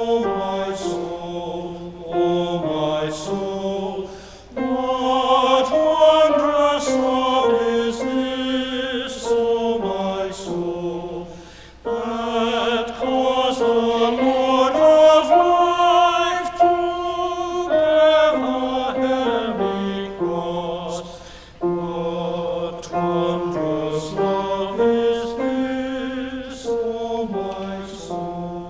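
Choir singing a slow, chant-like hymn in harmony, in long phrases of several seconds each, fading away at the end.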